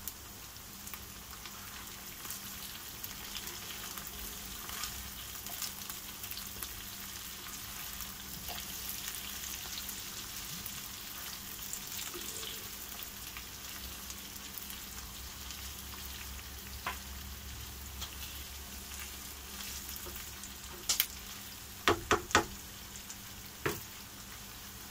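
Chopped onion and carrot sizzling steadily as they fry in oil in a frying pan, stirred with a spatula partway through. A few sharp knocks come near the end.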